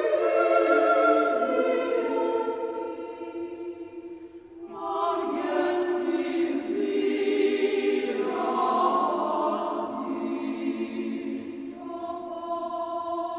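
Choir singing slow sacred chant in long held chords. One phrase fades away about four seconds in, and a new phrase begins just after.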